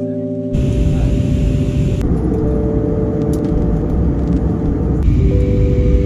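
Music of held chords, changing every couple of seconds, over a loud, steady low rumble of a vehicle in motion that sets in about half a second in.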